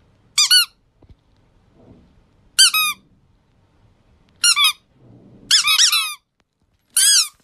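Squeaky toy squeezed in five short bursts of high, chirping squeaks, with pauses between them.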